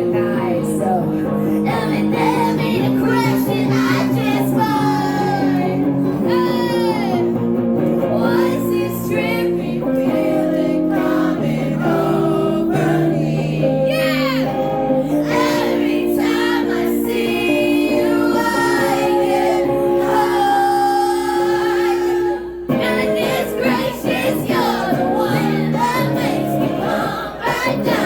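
Live pop-rock song: a woman singing over a single guitar accompaniment, with held chords under the melody.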